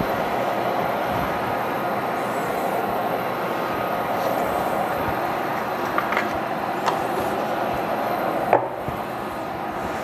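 Induction cooktop's cooling fan running steadily while it heats an empty pan, with a couple of light taps and a sharp click near the end, after which the noise drops a little.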